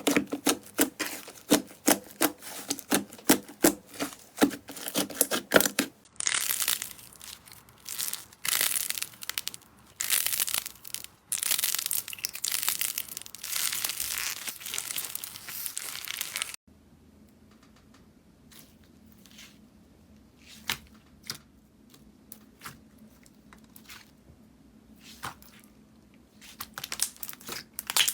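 Slime being squeezed and poked: quick clicking pops for the first few seconds, then longer crackling, crinkly squishes. These stop suddenly about two-thirds through, and faint scattered clicks follow that grow busier near the end.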